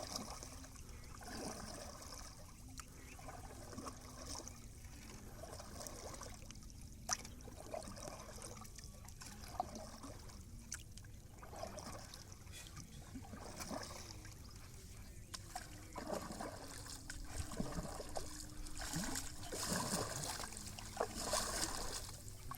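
Lake water trickling and sloshing around a small boat, with soft splashes every second or two, in the way that paddle strokes would make them.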